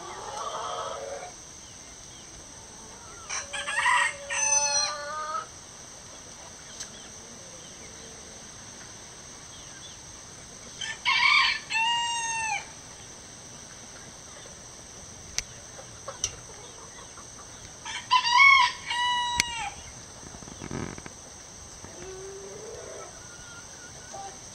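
Gold Sebright bantam rooster crowing three times, about seven seconds apart, with softer clucking calls near the start and near the end.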